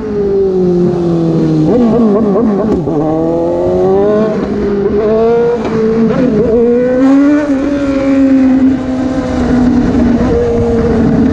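Motorcycle engine under way at road speed. Its note drops, wavers about two seconds in, climbs again, then holds fairly steady and eases down near the end as the throttle opens and closes.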